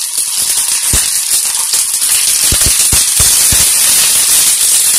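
Rice vadaam crisp sizzling and crackling in hot oil as it fries and puffs up, with a few low thumps in the middle.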